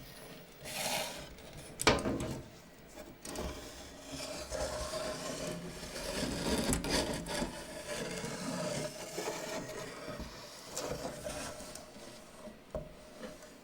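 Irregular rubbing and scraping on a hard surface, with one sharp knock about two seconds in.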